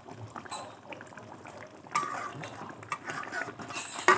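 Thick chilli sauce simmering in a pan with chicken pieces, bubbles popping and crackling, with a sharp knock just before the end.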